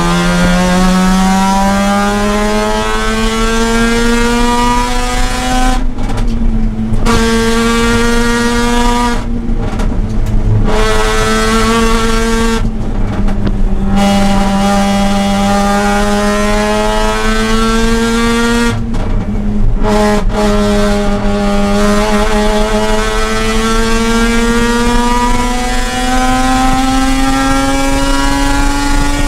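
Mazda RX-8's two-rotor rotary engine running hard on track, its pitch climbing slowly under load. A few short breaks in the sound drop the pitch back each time before it climbs again.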